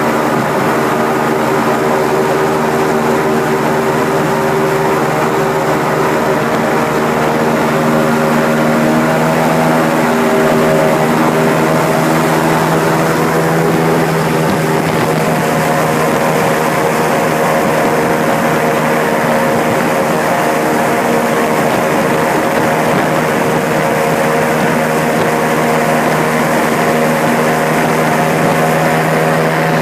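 Airboat's engine and air propeller running at speed: a loud, steady drone made of several pitched tones, which shift slightly in pitch about ten seconds in. Wind rushes over the microphone.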